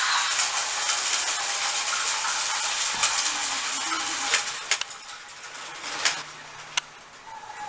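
Plarail battery-powered toy trains running on plastic track: a steady, fairly loud whirring rattle from the small motor, gears and wheels. After about four seconds it drops off, leaving a quieter rattle and a few sharp plastic clicks.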